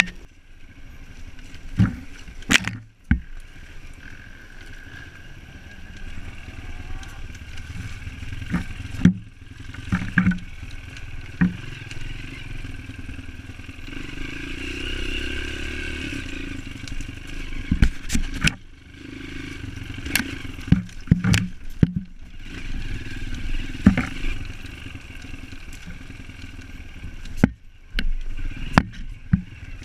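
Dirt bike engine running as the bike is ridden over a rough forest trail, with scattered sharp knocks and rattles from the bike jolting over bumps.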